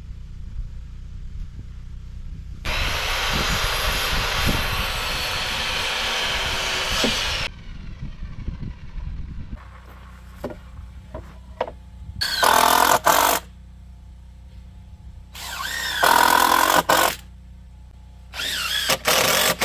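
A power tool running for about five seconds, then a few knocks of lumber being handled. After that a cordless drill drives screws into a wooden board in three short bursts, each with a whine that bends in pitch as the motor speeds up.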